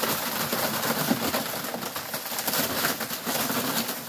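Dry corn husks rustling and crackling as a load of unshucked ear corn slides off a truck's tailgate on a cargo unloader's sheet, with ears dropping onto the ground.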